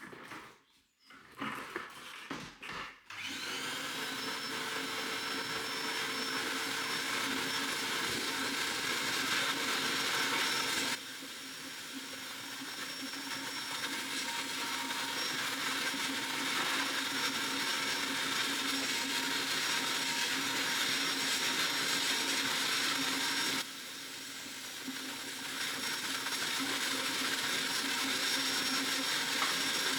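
A few short knocks, then a small electric motor running steadily with a high whine. The tool or machine cannot be told.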